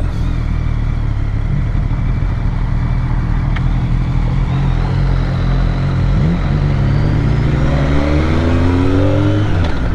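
BMW motorcycle engine running steadily, then rising in pitch from about six seconds in as the bike accelerates.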